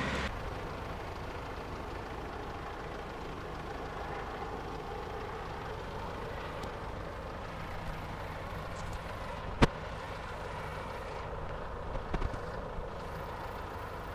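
Steady low hum of a motor vehicle running at the roadside. There is one sharp click about nine and a half seconds in, and a few lighter knocks about twelve seconds in.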